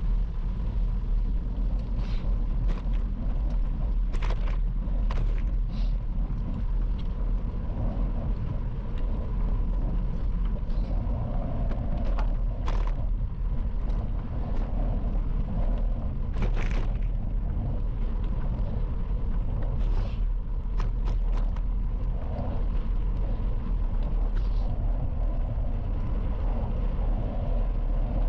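Bicycle tyres rolling along a gravel path: a steady low rumble with scattered sharp clicks and crackles from grit and stones under the wheels.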